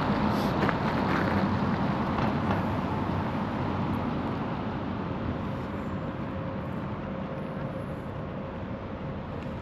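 Street traffic: the noise of a passing motor vehicle, gradually fading as it moves away.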